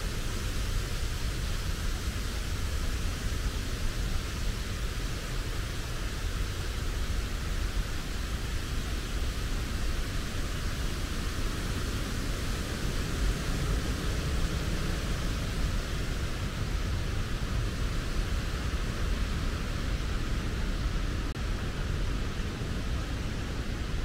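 Steady rushing noise with a low rumble underneath, unchanging, with no separate events or rhythm.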